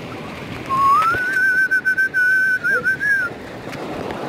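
A person whistling one note that slides up at the start and is then held with a slight wobble for about two and a half seconds, over the steady rush of water.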